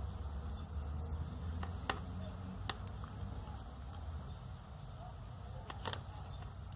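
Knitting needles clicking against each other a handful of times while stitches are bound off, over a low steady hum.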